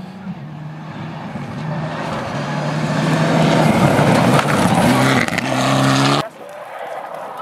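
Rally car on a gravel stage approaching and passing at speed, its engine note climbing and stepping through gear changes, growing louder with a rush of tyre and gravel noise. The sound cuts off abruptly a little after six seconds.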